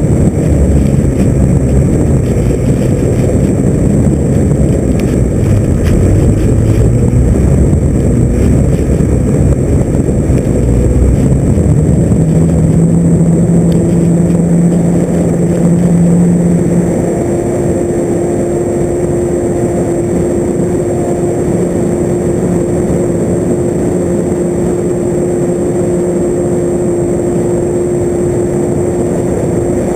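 Radio-controlled FPV aircraft's motor and propeller in flight, with wind rushing over the onboard camera; the pitch wavers with throttle in the first half, then a little past halfway the sound drops to a quieter, steadier drone.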